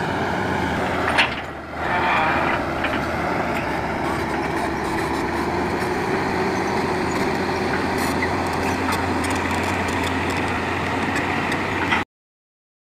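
A heavy vehicle's engine runs steadily, with a short sharp sound about a second in, and then cuts off suddenly near the end.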